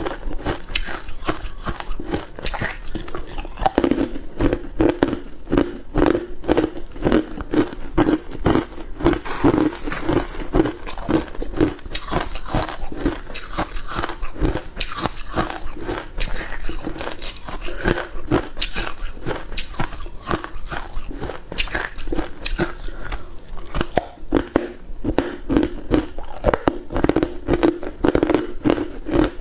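Ice being bitten and chewed close to the microphone: a dense run of crisp crunches and cracks, over a chewing rhythm of two or three bites a second.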